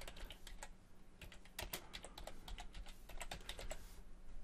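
Computer keyboard typing: a run of light, irregular keystroke clicks.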